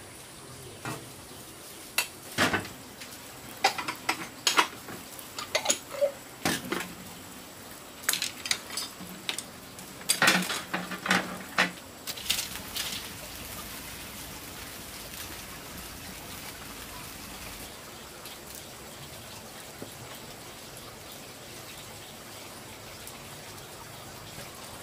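Dishes and utensils clinking and knocking in a burst of sharp clinks through the first half, followed by a steady hiss.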